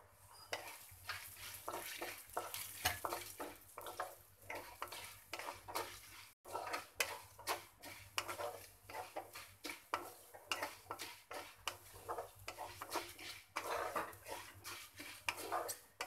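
A spatula stirring and scraping across a non-stick kadai in quick, irregular strokes, with oil sizzling. The sizzle comes from a tempering of mustard seeds, chana dal, urad dal, cumin, coriander and fenugreek seeds being roasted in the oil.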